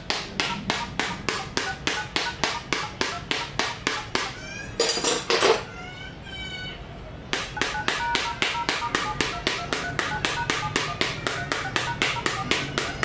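Smartphone dialer keypad tones: quick, even beeps, about four a second, as digits are entered. About five seconds in they break off for a short loud burst with sliding tones, then start again.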